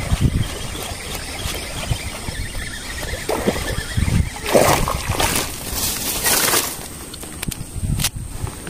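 Handling noises as a caught snakehead is unhooked from a frog lure: bursts of rustling and scraping in the middle, then a few sharp clicks near the end.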